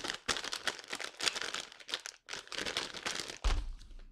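Plastic snack bag of crackers crinkling and rustling in irregular bursts as hands pull at its sealed top, which does not give. There is a low thump near the end.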